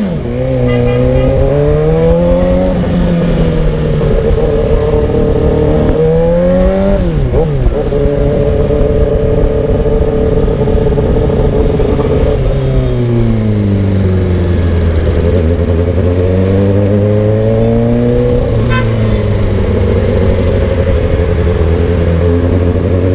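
Suzuki GSX-R600 inline-four engine and exhaust riding through traffic, the revs rising and falling with the throttle. The revs climb at the start, blip about seven seconds in, hold a steady note, then ease to a lower steady note before another blip a little past the halfway mark and rise again near the end.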